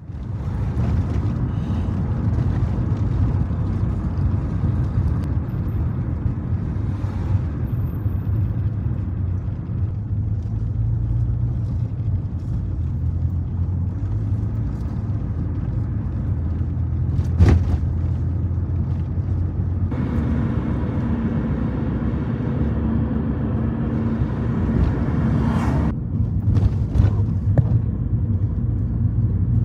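Steady low rumble of a moving vehicle, with a single sharp knock about halfway through and a few clicks near the end.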